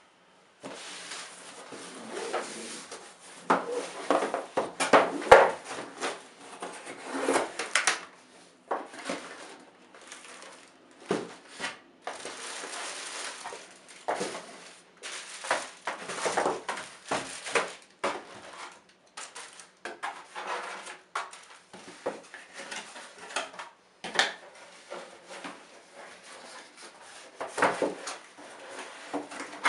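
Cardboard shipping box being opened and emptied by hand: irregular scraping, rustling and light knocks of cardboard flaps and lid. Near the end the plastic-bagged keyboard is lifted out and set down.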